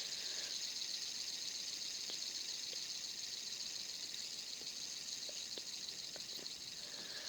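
Fidget spinner spinning freely on its bearing: a faint, steady high-pitched whir with a few faint ticks.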